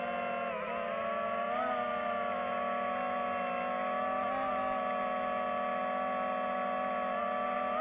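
Quadcopter drone's propellers and motors buzzing steadily in hover, the pitch shifting slightly as it manoeuvres.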